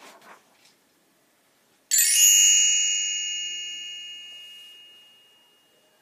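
A faint paper rustle of a book page turning, then a single bright bell chime struck once about two seconds in, ringing out and fading away over about four seconds. It is the read-along's page-turn signal sound effect.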